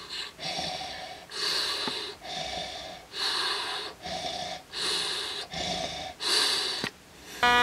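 Darth Vader-style mechanical respirator breathing: a hissing in-and-out breath repeating about every second and a half.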